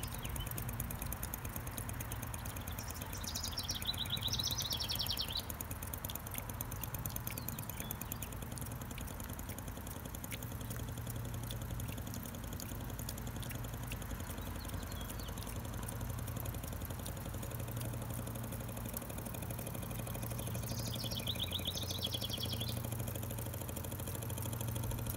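Mini Renown 101 toy live-steam engine running steadily at speed, a fast even ticking beat over a low hum, as it drives a model water pump by a string belt. Two brief chirping trills come in, about three seconds and about twenty-one seconds in.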